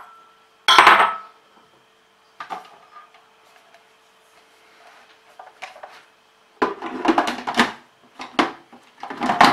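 Hard plastic knocks and clicks from a food processor's clear lid and bowl being handled: one sharp knock about a second in, a few light taps, then a busy run of clicks and knocks near the end as the lid is fitted back on. The motor is not running.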